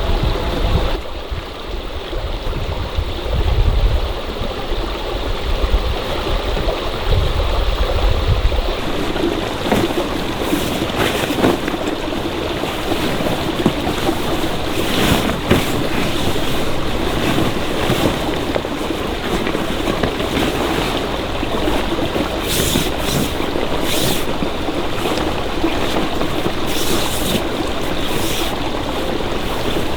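Flowing stream water rushing steadily. A deep rumble sits under it for about the first eight seconds and then drops away, and a few short sharp sounds come in the second half.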